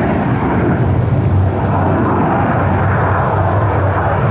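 Aermacchi MB-339 PAN jet flying an aerobatic manoeuvre, its Rolls-Royce Viper turbojet making a steady, loud jet noise.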